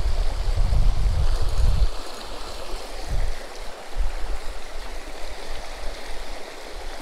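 River water flowing, a steady rushing hiss, with a low rumble in the first two seconds that then drops away.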